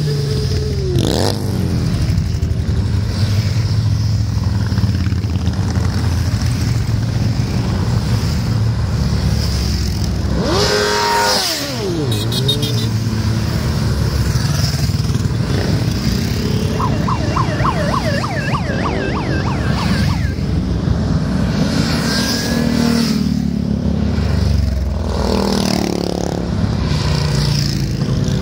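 Motorcycles riding past one after another in a long column, their engines running continuously, with the pitch dropping as each close bike goes by.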